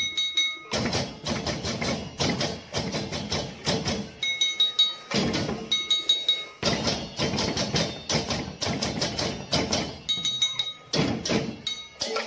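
Balinese parade percussion ensemble of kendang drums, okokan wooden bells and cengceng cymbals playing fast interlocking rhythms. The playing comes in loud bursts broken by short pauses, about three times, in which a high metallic ringing is left hanging.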